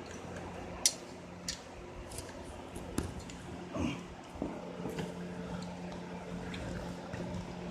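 Sparse clicks and light taps of hand tools and small metal parts being handled while working on a motor, over a steady low hum.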